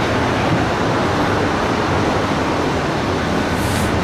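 Steady machinery noise of a meat-processing plant, a continuous rushing hum, with a meat grinder running on hamburger in the grinding room.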